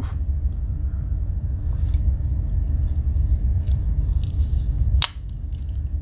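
Steady low rumble, with faint ticks of a Swiss Army knife's tools being handled and one sharp click about five seconds in, as the scissors are folded shut into the handle.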